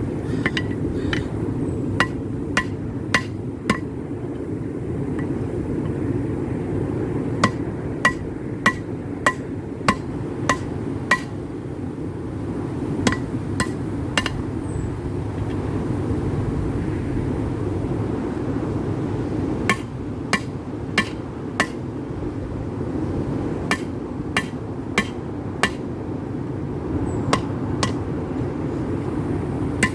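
Hand hammer striking hot rebar steel on an anvil, in runs of about four to seven ringing blows, roughly two a second, with pauses between runs. A steady low rushing noise runs underneath.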